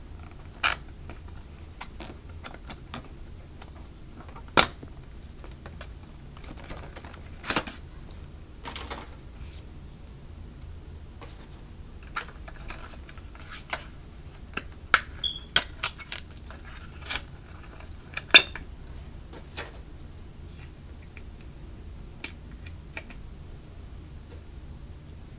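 A power adapter's cardboard box being opened by hand and the adapter taken out: scattered clicks and taps of card and plastic packaging, with a quick run of sharper clicks a little past the middle.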